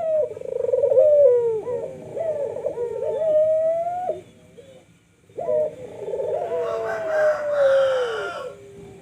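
Puter doves (domestic Barbary turtle doves) cooing. There are two long rolling coo phrases, the second starting about halfway through. A higher, rougher call lies over the end of the second phrase.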